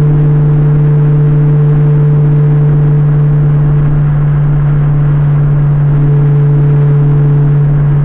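Honda S2000 engine and road noise heard inside the cabin at steady cruising speed: a loud, unchanging low drone with a steady hum over it.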